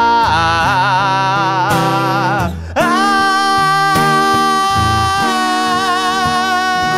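Man singing with a strummed acoustic guitar, drawing out notes with vibrato: a wavering run, a brief break about two and a half seconds in, then one long held high note.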